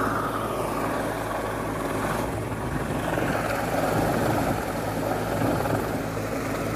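Rescue helicopter hovering low overhead, with a steady drone from its rotor and engine.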